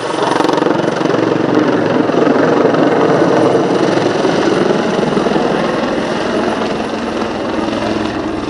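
Leonardo Wildcat HMA.2 helicopter flying a display, its rotor beating rapidly and loudly. The sound swells just after the start and eases slightly after the middle.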